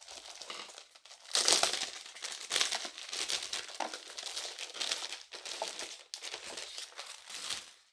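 Clear plastic wrap around a keyboard crinkling as it is handled and pulled open. The crackling comes in uneven bursts, loudest about a second and a half in, and stops just before the end.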